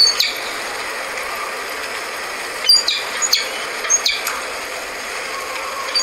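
Recorded calls of a peregrine falcon: short, sharp, high-pitched notes. A pair comes at the start, a quick group of about five follows about three seconds in, and another pair comes at the end, all over the steady hiss of a field recording.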